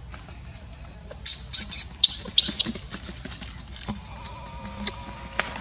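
Infant macaque crying in a quick run of short, high-pitched shrieks, about six of them, then a few fainter squeaks: distress calls from a baby being handled roughly by its mother.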